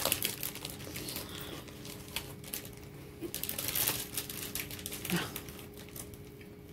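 Thin plastic snack bag crinkling as it is handled, with scattered crunches as hard orange snack sticks (Dominican 'rabitos') are bitten off and chewed.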